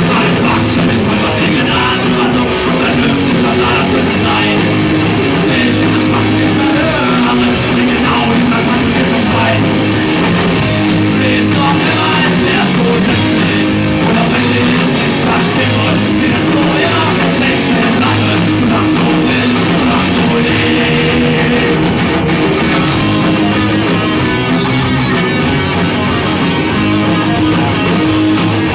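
A rock band playing live and loud, with electric guitars, bass and a drum kit.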